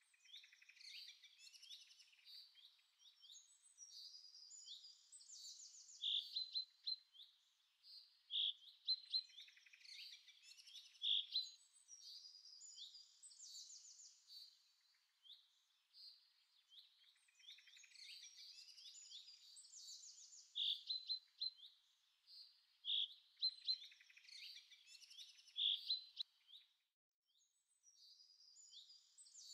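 Small birds chirping and trilling, with a few louder sharp chirps; the same passage repeats about every fourteen seconds, like a looped birdsong track.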